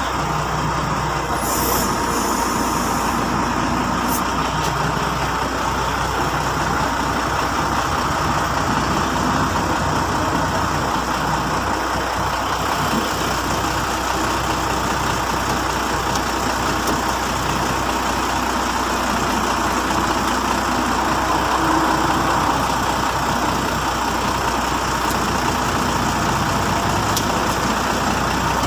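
Large vehicle's engine running steadily close by, a continuous mechanical drone.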